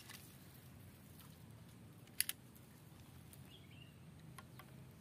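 Quiet outdoor background with a faint steady low hum, broken by a sharp double click about two seconds in and a few fainter ticks.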